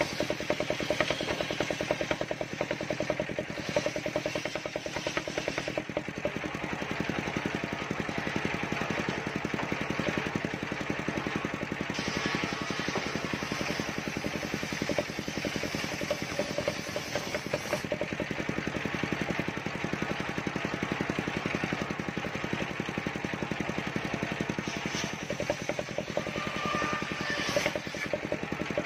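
Large circular saw bench (serkel) running and ripping a mindi log lengthwise, a steady mechanical drone of the machine with the noise of the blade in the wood; the cutting noise grows stronger for several seconds midway.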